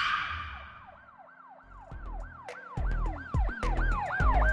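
Produced intro sting: a whoosh fading out, then a siren rising and falling about three times a second, joined about two seconds in by heavy bass drum hits and sharp clicks.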